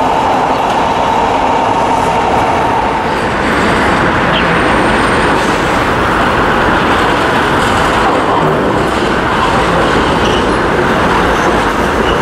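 Electric trams running on street track. For the first three seconds there is a steady rolling noise with a high whine held over it. After that, a tram comes closer and passes, and its wheels rumble on the rails.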